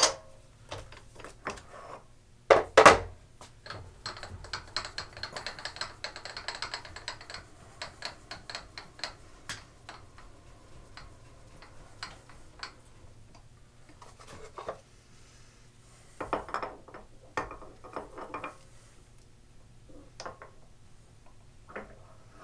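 Steel workholding on a milling machine being handled: a loud metal clank about three seconds in, then a run of quick clicks and rattles and scattered knocks as the table is moved over and a steel tool-holder jig is taken out of the vise and set back in.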